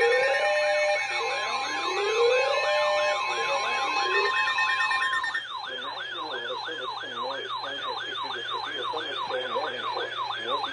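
Layered electronic emergency sirens. For about the first five seconds, slow rising wails overlap steady alarm tones; then a fast yelp siren sweeps up and down about three times a second.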